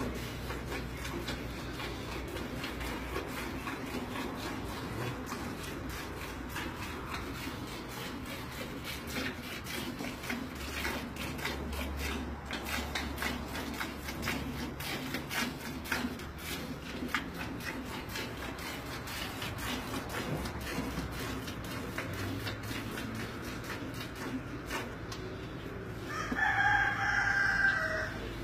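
Milk squirting by hand from a Holstein cow's teats into a pail, in quick uneven spurts. Near the end a rooster crows once, the loudest sound.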